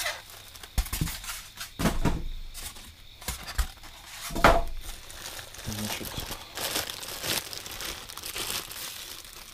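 Plastic packaging crinkling and rustling as new car speakers are unpacked and handled, with a few knocks in between, the loudest about four and a half seconds in.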